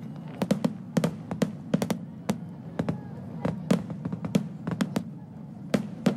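Underwater fireworks bursting at the water's surface: an irregular run of sharp bangs and crackles, about three a second, over a steady low rumble.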